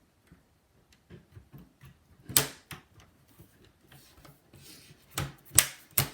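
Plastic computer case being handled and fitted together by hand: faint scattered ticks, then a few sharp plastic clicks and knocks, the loudest about two seconds in and several more near the end.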